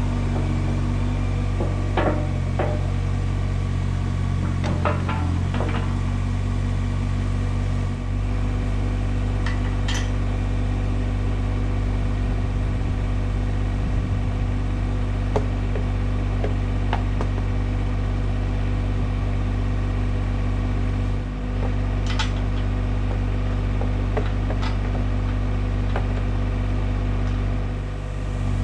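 IHI 20NX mini excavator's diesel engine running steadily while it works the septic tank, with a few sharp clanks and knocks now and then.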